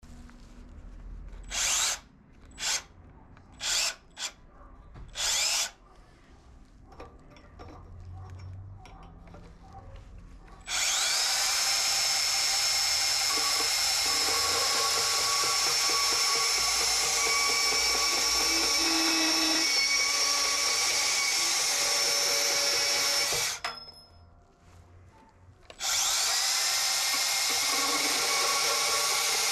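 Makita DPB184 18V brushless cordless band saw. Its motor is blipped briefly five times, then it runs steadily with a rising spin-up as its blade cuts through a square metal tube. It stops for a couple of seconds about two-thirds through, then spins up again and carries on cutting.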